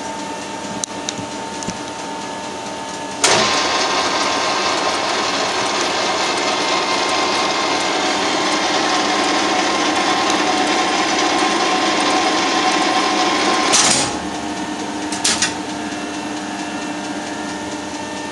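Weiler capstan lathe running slowly through a screwcutting trial pass. About three seconds in, the feed mechanism engages and the machine's gear and feed noise jumps much louder. It runs evenly for about ten seconds, then cuts off abruptly, followed by a couple of light clicks.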